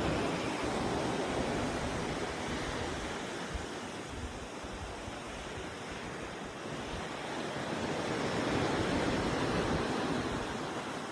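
Open-ocean sea water rushing and washing, heard from a cruise ship, with wind blowing on the microphone. A steady rush that swells and eases slowly, louder at the start and again near the end.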